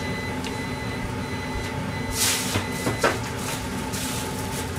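A short high electronic beep from a kitchen appliance, over a steady mechanical hum. A rustle comes about two seconds in and a single knock about a second later.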